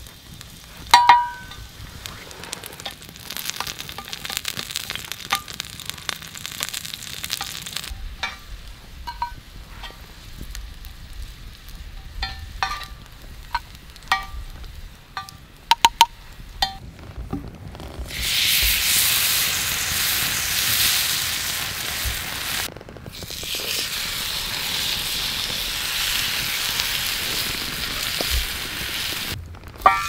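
Sliced garlic frying in olive oil on an iron griddle plate over a wood fire. Scattered light metal clinks and taps come first, then a loud, steady sizzle starts about 18 seconds in, with a brief break partway through.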